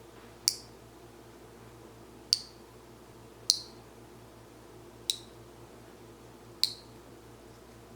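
Five sharp, high clicks, spaced irregularly a second or two apart.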